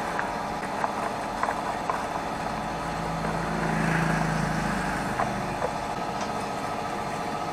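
Caramel-coated popcorn sliding and rustling as it is poured from a stainless steel pot into a plastic bowl, over a steady low motor hum that swells about halfway through.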